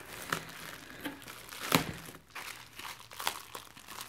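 Plastic bubble wrap crinkling and crackling as hands pull it around a wrapped glass candle jar, with a sharper crackle a little under two seconds in.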